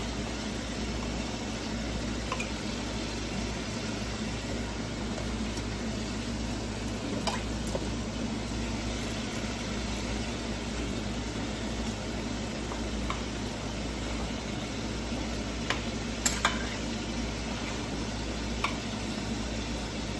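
Pieces of beef sizzling in a skillet on a gas stove, a steady frying hiss, with a few sharp clinks of a spoon against a pot, the loudest a quick run of three about three-quarters of the way through.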